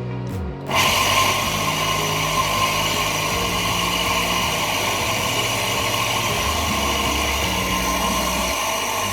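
An electric motor switches on about a second in and runs steadily, with a constant whirring hum.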